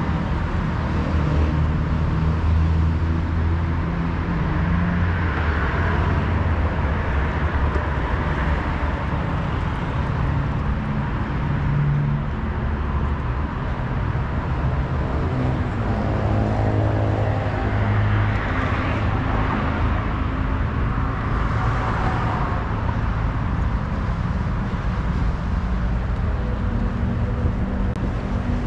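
Street traffic: motor vehicle engines running with a steady low rumble, and cars passing twice, once about a fifth of the way in and again about two-thirds of the way through.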